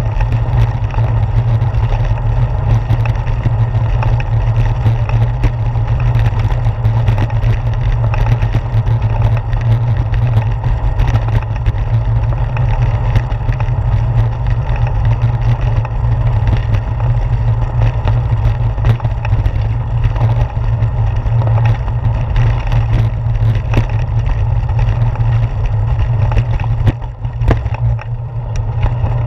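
Steady low rumble of wind and road vibration picked up by a handlebar-mounted GoPro Hero 4 on a moving bicycle, with frequent small clicks and rattles as it rolls over brick pavement. The rumble dips briefly near the end as the ride moves onto smoother concrete.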